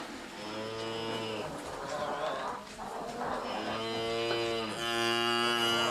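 Cattle mooing: one long moo about half a second in, then two more back to back in the second half, the last still going at the end.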